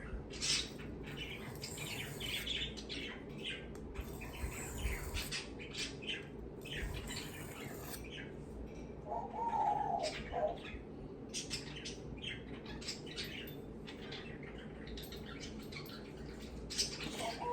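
Pet bird chirping on and off, with two louder, lower calls, one about halfway through and one at the end, over the scrape of knife strokes on a 600-grit sharpening stone.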